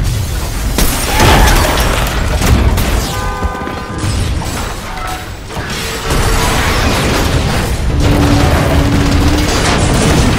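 Train-crash sound effects: a loud, continuous rumble of crashing and scraping metal, with drawn-out metallic screeches and booms. The sound gets louder about six seconds in, as a fireball erupts.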